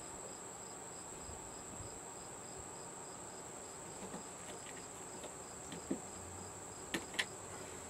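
A few faint clicks and taps of parts being handled inside an opened flat-screen TV, over a steady high whine and a rapid, evenly pulsing high chirp.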